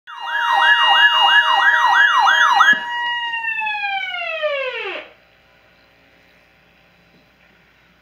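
Weather alert radio sounding its alarm tone over its speaker: a steady tone with a quick warbling sweep about three times a second for nearly three seconds, then the steady tone alone, which slides down in pitch and cuts off about five seconds in, leaving faint hiss.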